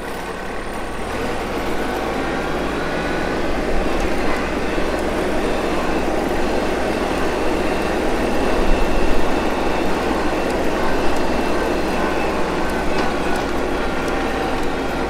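Iseki TM3265 compact tractor's diesel engine pulling the tractor along in high range third gear. It gets a little louder over the first few seconds, then runs steadily.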